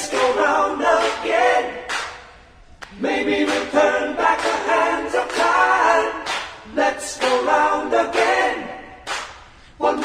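Several voices singing in harmony with no instruments: an a cappella break in a dance track, the bass and drums dropped out. The singing comes in phrases of two to three seconds with short pauses between them.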